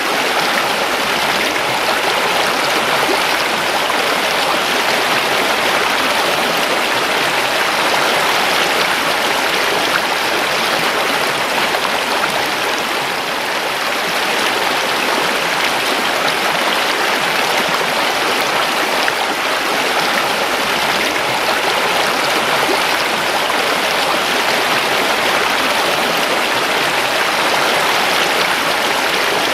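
River water rushing and babbling over rocks, a steady unbroken flow.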